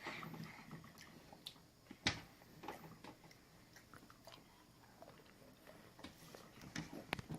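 Quiet handling noises: faint rustling with a few sharp clicks, the loudest about two seconds in and another near the end.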